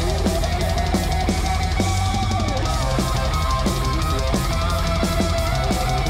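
Instrumental passage of a psychedelic stoner rock song: electric guitar over a busy, steady drum-kit beat of kick and snare.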